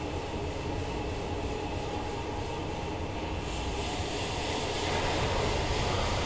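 Steady low rumbling background noise with a faint hum, getting a little louder and brighter about four seconds in.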